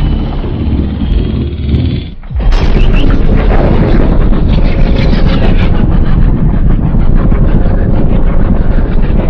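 Loud designed giant-monster sound effect: a dense, low, crackling rumble that drops away briefly about two seconds in, then comes back at full strength.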